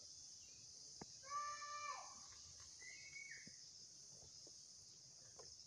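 Faint steady high insect chirring, with a short animal call about a second in that drops in pitch at its end, and a brief higher call around three seconds.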